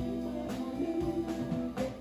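Background music: a guitar-led band track with a steady beat.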